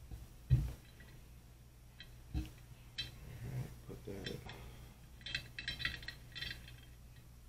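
Metal fly-tying tools handled at the vise, with a dull thump about half a second in, a knock near two and a half seconds, then a run of light metallic clinks around five to six and a half seconds from the dubbing-loop tool hanging on the thread loop.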